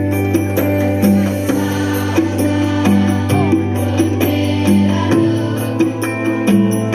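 A large choir singing Indonesian patriotic songs with instrumental accompaniment: long held notes over a steady, regular beat.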